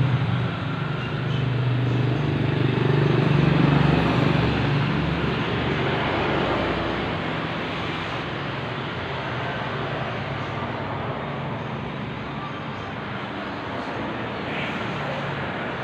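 Suzuki Satria FU 150's single-cylinder four-stroke engine running at idle, a little louder for a few seconds and then steady: a freshly rebuilt engine running smoothly.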